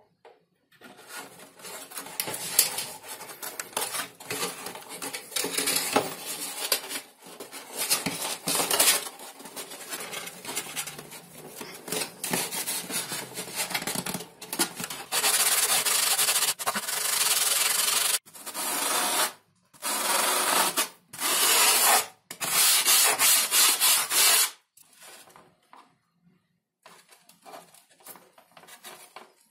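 Hands rubbing and bending sheets of XPS foam board: irregular scuffs and creaks at first, then about six long, even rubbing strokes in the middle, with lighter scuffs near the end.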